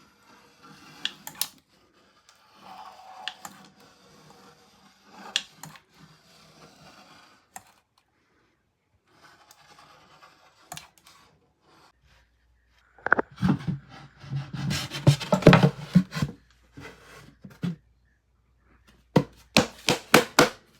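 Handling sounds from fitting wooden window trim: scattered clicks and knocks, a few seconds of dense knocking and rubbing about two-thirds of the way in, then a run of sharp taps about three a second near the end.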